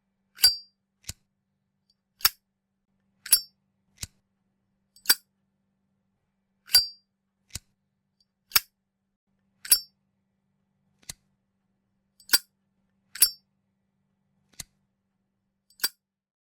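Zippo lighter's metal lid being flicked open and snapped shut over and over, about fifteen sharp metallic clicks and clinks roughly a second apart, some ringing briefly.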